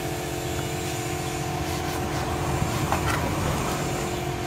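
A steady machine hum with several steady tones. About two to three seconds in come a few faint clicks and rustles as a laptop motherboard is handled and lifted out of its plastic chassis.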